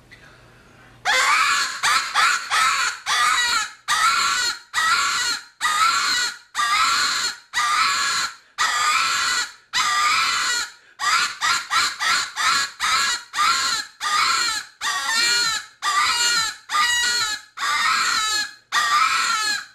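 Rabbit distress cries blown on a double-reed coon squaller predator call: a long series of wavering, high-pitched 'wah' squalls with brief breaks between them, starting about a second in. Some come quick and choppy, others are drawn out, and none has the coon call's flutter.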